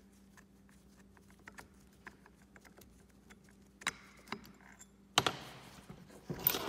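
Light clicks and taps as a Tolomatic rodless air cylinder is handled, then from about five seconds in a louder scraping rattle as its end block is worked off the cylinder tube. A faint steady hum sits underneath.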